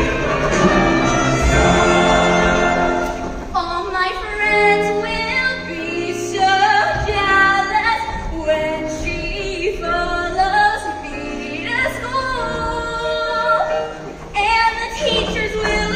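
Choir singing a wordless melody in several parts, with female voices carrying the line; the texture thins and changes about three and a half seconds in, and dips briefly near the end.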